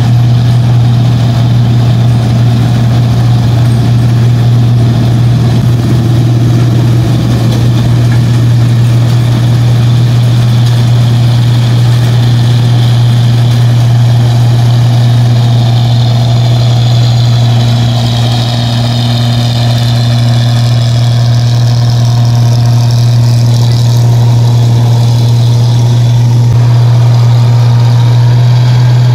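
New Holland Clayson 1545 combine harvester working in a rice crop: a loud, steady engine drone with the even whine of its belt-driven threshing machinery above it.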